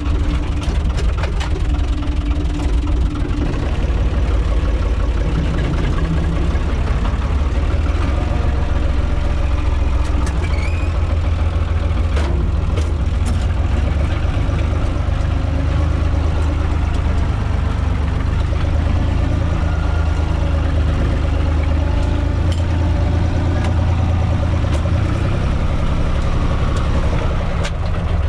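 UTB 445 tractor's diesel engine running steadily, heard from inside its cab, with a few sharp knocks and rattles around the middle as the tractor moves off and drives along.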